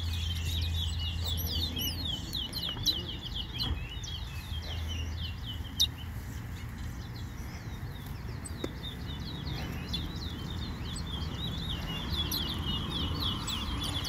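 Caged finches singing: a fast, continuous run of high chirping notes, each sliding downward, with two brief clicks about two and six seconds in.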